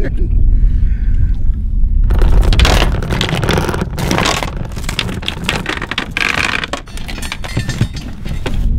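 Wind rumbling on the microphone, then from about two seconds in a metal anchor chain rattling and scraping against an inflatable boat as a grappling anchor is hauled in and handled, with many short clanks.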